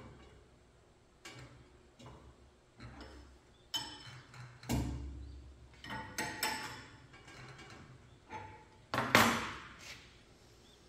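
Tools and metal parts clinking and knocking at irregular intervals as work goes on at a jointer; the loudest is a sharp knock about nine seconds in.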